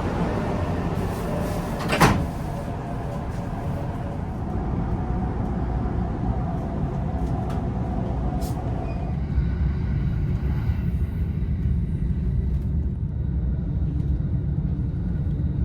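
Steady low rumble of a JR commuter train, with one sharp knock about two seconds in and a faint steady tone that stops about halfway through.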